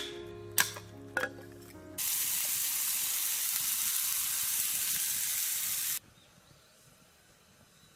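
A short music phrase with sharp struck notes ends, then food sizzles loudly and steadily in a pan over the fire for about four seconds and cuts off abruptly. Faint ambience follows.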